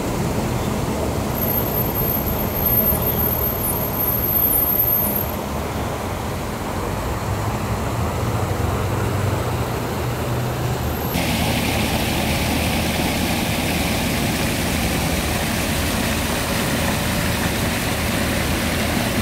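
Steady street traffic mixed with the splashing of fountain water jets. About eleven seconds in, the sound changes abruptly to a brighter, hissier rush of water from the jets close by.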